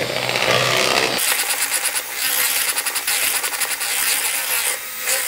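Electric hand mixer running steadily, its beaters whisking a thin chocolate cake batter in a bowl. About a second in the sound turns brighter and hissier, and it cuts off at the end.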